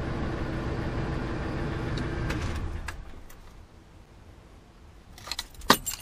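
Ford E250 van's Triton V8 idling steadily, then switched off about two and a half seconds in and dying away. Near the end there are a few light clinks of the ignition keys.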